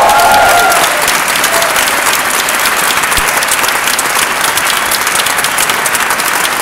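Audience applauding, dense and steady. The last held note of the song dies away within the first second.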